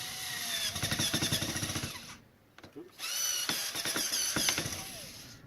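Handheld power drill/driver backing screws out of electronics. The motor whines with rapid clicking, stops for about a second about 2 s in, then runs again with its pitch rising and falling.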